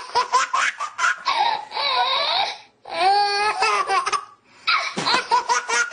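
A baby laughing hard in three bouts of rapid chuckles and longer high squealing notes, with two brief pauses for breath between them.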